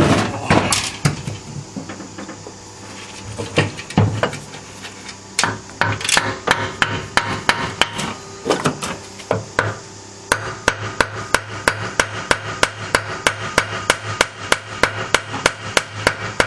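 Hammer blows on a stuck part of a VW Superbug's air-cooled flat-four engine during teardown, the part held fast by a glued gasket. A few scattered blows come first, then from about ten seconds in a steady run of quick taps, about three a second.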